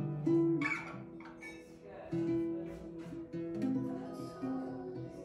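A nylon-string classical guitar being played, plucked and strummed through a melody of changing notes.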